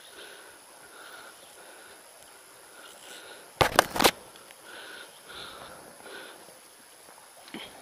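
Playing and landing a hooked hampala on a light baitcasting rod. Faint sounds repeat about twice a second. About halfway through comes a loud cluster of three or four sharp knocks or splashes, and there is one smaller knock near the end.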